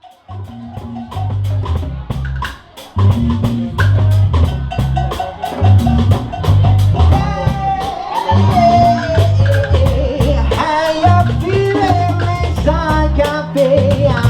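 Instrumental intro of a reggae song: a bass line and drums in a steady groove, getting fuller about three seconds in, with a melody line above from about halfway.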